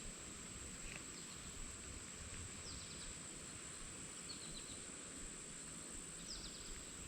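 Faint creekside ambience: a steady high-pitched insect drone, with a few short, faint bird chirps about every one and a half to two seconds.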